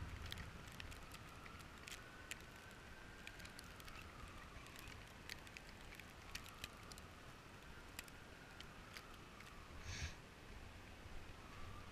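Faint low rumble of a vehicle waiting in traffic, with scattered clicks. A faint tone slowly rises and falls about every five or six seconds, and there is a short hiss about ten seconds in.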